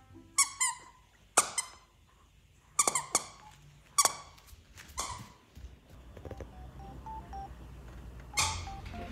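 A Maltese dog chewing a rubber squeaky toy makes it squeak again and again. The squeaks are short and sharp, each dropping in pitch, and come in quick pairs and singles for about five seconds. One more squeak comes near the end.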